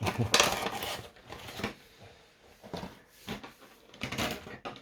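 Irregular rustling, crinkling and light tapping of a Funko Pop's cardboard box and plastic packaging being handled, loudest in the first half second.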